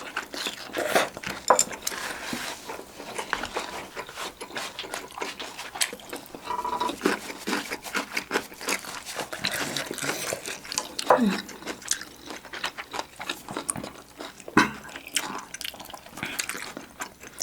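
A person eating a sauced rice bowl close to the microphone: wet chewing and mouth sounds with many small irregular clicks. There is a short vocal sound with a falling pitch about eleven seconds in.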